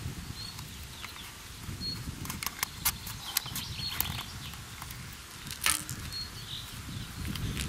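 Handling noise: several sharp clicks and taps as hard plastic wobblers with treble hooks are picked up and turned over by hand, over a low rumble.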